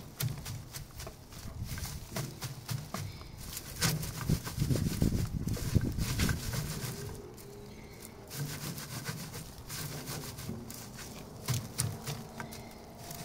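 Dry amaranth seed heads rubbed by hand against a wire-mesh screen, a scratchy, crackling rustle as the seed is threshed out of the heads. It is loudest in the middle.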